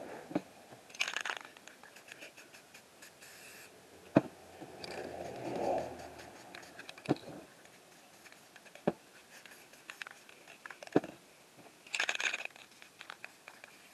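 Aerosol spray-paint cans giving short hisses of spray, about a second in, around three seconds and near the end. Between them come several sharp knocks and taps as the cans are handled and set down.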